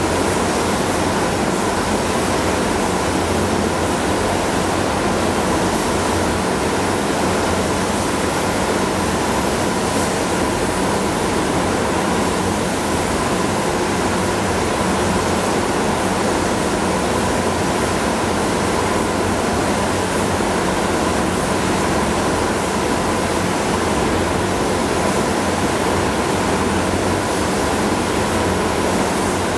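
Steady rushing hiss of air in a paint spray booth: compressed air through a hose-fed spray gun applying paint, together with the booth's ventilation, with a faint steady tone running through it.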